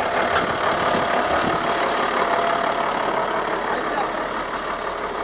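Mercedes-Benz Unimog army truck's diesel engine idling steadily.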